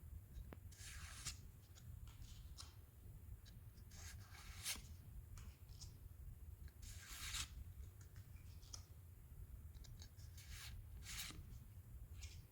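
Pokémon trading cards being handled and slid against one another by hand, giving soft brief swishes every second or few, over a low steady hum.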